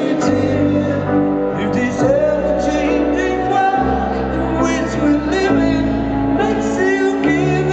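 Live rock concert music: a male lead vocal sung slowly at the piano over band backing. Sustained low chords change about every two seconds.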